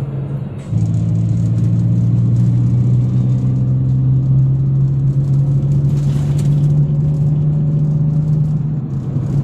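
Perodua Viva's engine and road noise heard inside the cabin while driving: a steady low drone. It becomes louder after an abrupt change about a second in.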